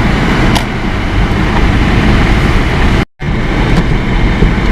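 Car driving on a snowy road, heard from inside the cabin: a steady low rumble of road and tyre noise. The sound cuts out for an instant about three seconds in.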